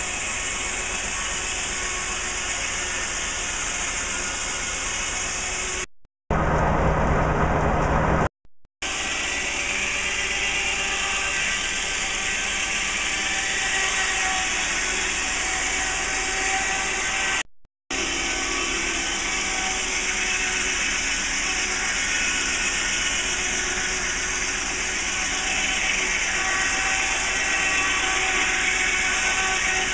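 Large circular sawmill blade running and cutting lengthwise through a log: a steady mechanical whirring noise with a few faint held tones. It cuts out abruptly twice for a moment, with a short louder stretch between the two gaps.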